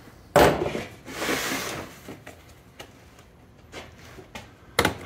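Hard plastic tool case set down on a wooden workbench with a knock, then slid across the bench top, followed by a few light clicks.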